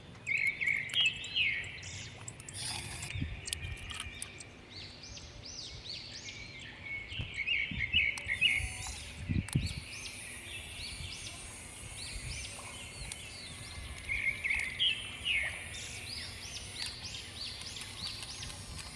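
Small birds chirping: quick runs of high chirps, loudest in three bouts near the start, about halfway through and about three-quarters of the way in, over a low rumble with a few dull thumps.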